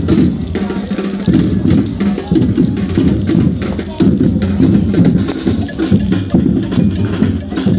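Music with drums and percussion, mixed with voices.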